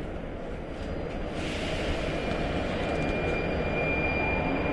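Prague Metro 81-71M train running on the line, a steady rumble of wheels and running gear that grows a little louder. About two seconds in, a thin steady high whine joins it.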